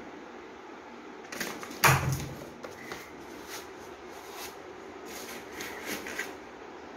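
Cardboard and paper being handled: scattered rustles and scrapes as a product box is taken out of a cardboard shipping box and slid out of its corrugated cardboard wrap. One loud thump about two seconds in.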